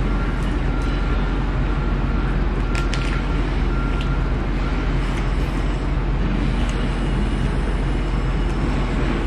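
Steady machine hum and hiss, with a few faint crunches around three seconds in as a crispy fried chicken sandwich is bitten and chewed.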